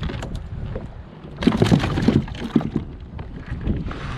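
A quick cluster of knocks and rattles on a plastic kayak hull, starting about a second and a half in and lasting about a second, over a steady low rumble of wind on the microphone.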